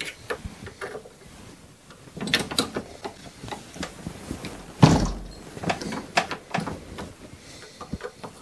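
Metal clicks and clacks of a turret reloading press and its priming arm as a primer is seated in an 11 mm Mauser brass case, with a cluster of clicks a little over two seconds in and the loudest knock about five seconds in.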